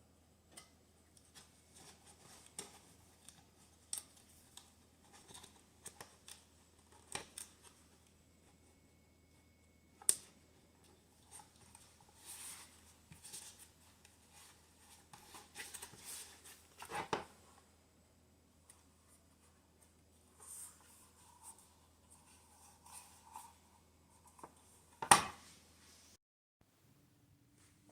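Handling noises from working on a Dell docking station's plastic casing: irregular small clicks, taps and scrapes, with a sharp snap about ten seconds in and a louder one near the end. A faint low hum runs underneath and stops shortly before the end.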